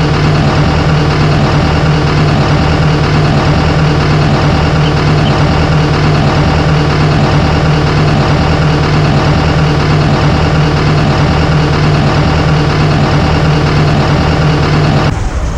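Heavy diesel engine running at a steady speed with a strong, unchanging low hum; it cuts off abruptly near the end.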